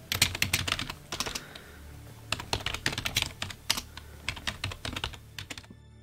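Fast typing on a computer keyboard: two runs of quick keystrokes with a short pause between them, stopping shortly before the end.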